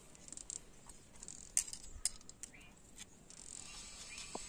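Small metal engine parts clicking and clinking as they are handled inside an opened motorcycle crankcase: a handful of short, sharp ticks, the two loudest a little under half a second apart at about a second and a half in.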